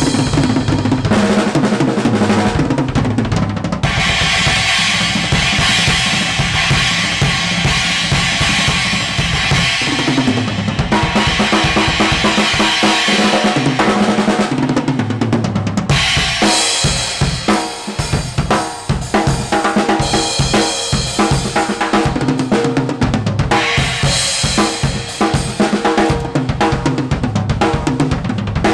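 Acoustic drum kit played in a continuous groove: kick drum, snare and tom hits under crash and ride cymbals, with the cymbals ringing heavily through long stretches.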